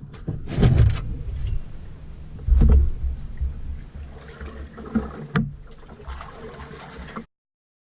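Canoe on the water: a few sharp knocks against the hull among heavy low rumbles on the microphone, then the sound cuts off suddenly near the end.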